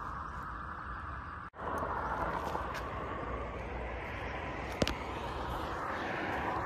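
Steady rushing outdoor background noise, briefly cut off about one and a half seconds in, with a single sharp click near the five-second mark.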